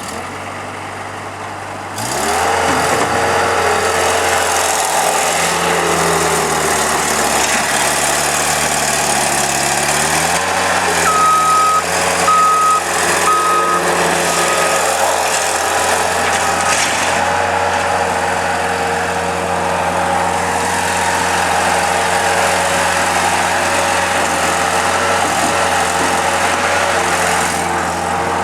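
Bobcat T140 skid steer's diesel engine running just after starting: it runs low at first, then speeds up about two seconds in and again around ten seconds, and settles into a steady run. Four short electronic beeps sound between about eleven and fifteen seconds.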